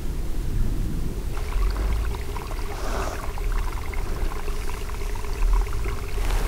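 Wind buffeting the microphone: a low, uneven rumble, with fainter scratchy rustling from about a second and a half in.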